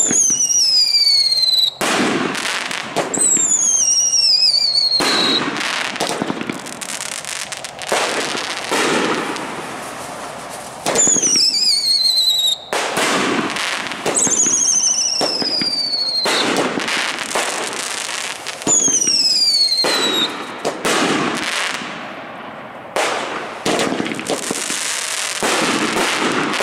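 A string of 2-inch Dominator aerial firework shells fired one after another. Each rises with a whistle falling in pitch and then bursts with a loud bang, eight or nine times.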